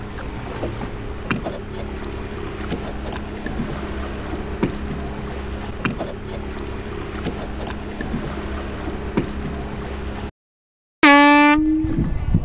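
Motorboat engine running steadily under the rush of wind and water, with light knocks every second or so. The sound cuts out briefly about ten seconds in. Then a short, loud horn blast sounds.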